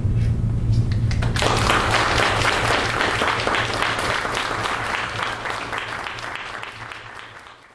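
Audience applauding. A few scattered claps come first, then full applause from about a second and a half in, dying away near the end.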